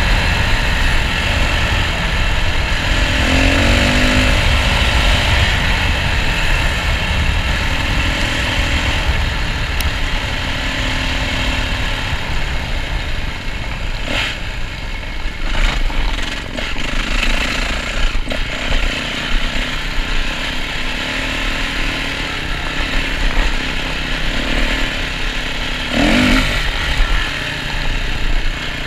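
Yamaha dirt bike engine running under way on a dirt trail, heard from the rider's seat, its pitch rising as the throttle is opened about three seconds in and again near the end. A few sharp knocks cut through in the middle.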